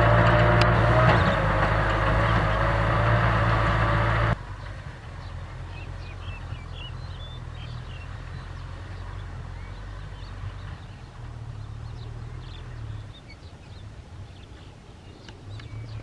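Tractor diesel engine running loud and steady, cut off abruptly about four seconds in. After that a quieter low engine hum carries on, with a few faint high chirps.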